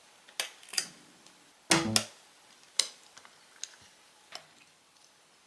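Light clicks and taps of small tools working on a smartphone's frame and board, with one louder knock and a brief low ring about two seconds in, then a few fainter ticks.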